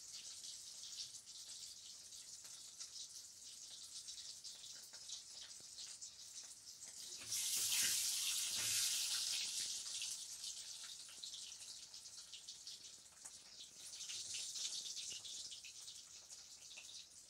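Boiled eggs sizzling in hot oil in a metal kadai, a steady frying hiss full of fine crackles. The sizzle swells louder about seven seconds in, as the eggs are moved in the pan, and swells again for a moment later on.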